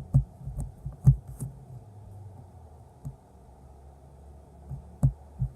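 Fingers poking a sticky edible slime made from Fruit Winders, giving a run of short, irregular sticky pops, about eight over the few seconds. Popping like this is the poke test that shows the slime has come out right.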